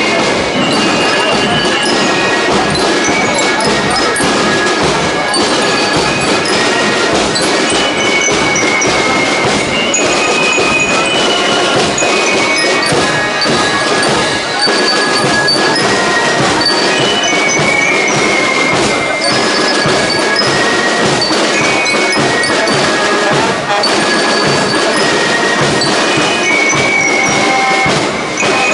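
Drum and flute marching band playing a march: transverse flutes carrying the tune in high held notes over marching drums.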